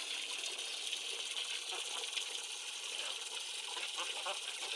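Steady hiss of water running and splashing into a small lined garden pond, with a few faint short calls from the runner ducks swimming in it.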